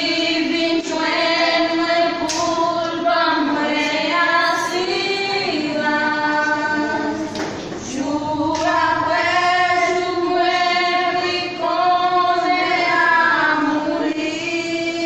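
Women's voices singing a Haitian Creole gospel hymn together, with long held notes and no instruments clearly heard.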